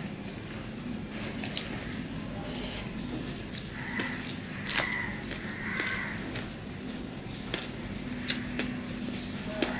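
Close-up eating sounds: fingers squishing and mixing rice on a plate, and chewing with sharp wet mouth clicks. A faint steady hum runs under it, and three short higher-pitched sounds come about four to six seconds in.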